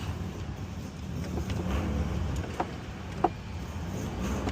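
A few light clicks of a metal pick working an old thread-repair coil out of a bolt hole, over a steady low rumble.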